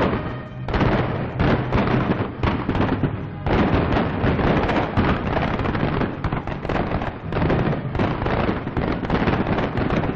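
Battle sounds on an old 1940s film soundtrack: a dense, ragged crackle of gunfire and explosions, with short lulls about half a second and three and a half seconds in.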